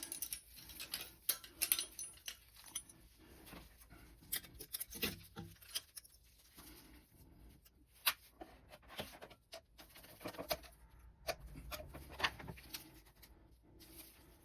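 Irregular small metallic clicks, taps and scrapes of hand-handled parts: an oil burner's ignition electrodes being fitted back in and adjusted by eye.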